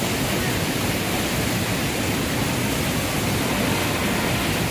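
Fast mountain torrent and waterfall rushing over rocks, a steady, loud roar of whitewater.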